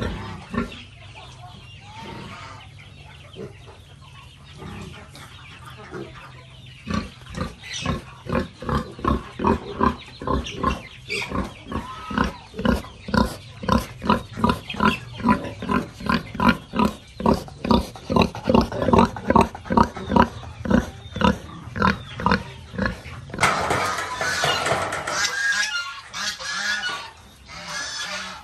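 Pigs grunting in a steady rhythm, about two short grunts a second, followed near the end by a louder, harsher stretch of pig noise.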